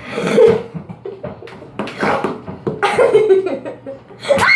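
Children making loud non-word vocal sounds in about four short bursts, the kind of laughing and mouth noises that follow a toilet joke.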